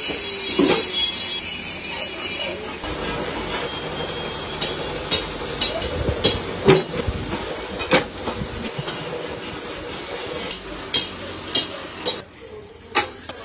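Pan-casting foundry sounds: a hiss for the first couple of seconds, then a steady hum broken by scattered sharp knocks, with the loudest strikes in the middle and a few more near the end.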